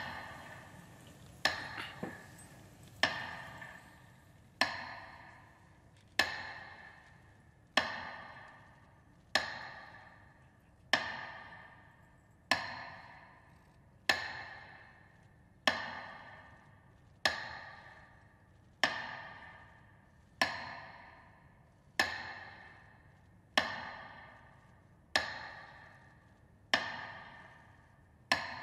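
Metronome beating slowly and evenly through loudspeakers, one stroke about every 1.6 seconds, each stroke ringing out and dying away. This is the beat that marks a minute of silence.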